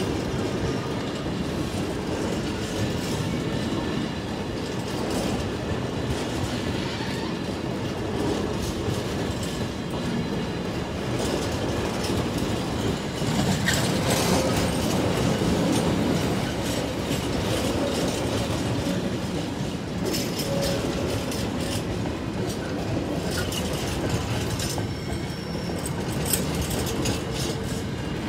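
A long rake of empty container flat wagons rolling past behind a Class 66 diesel locomotive, their wheels clattering over the rail joints, with an occasional faint wheel squeal.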